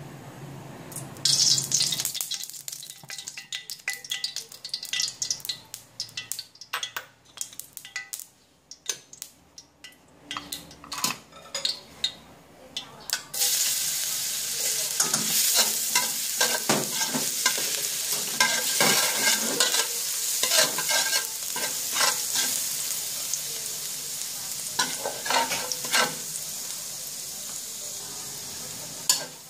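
Cooking oil poured into a hot wok hisses briefly, followed by scattered light clicks and taps. About 13 seconds in, chopped garlic goes into the hot oil and sizzles steadily and loudly, stirred around the wok with repeated scraping strokes.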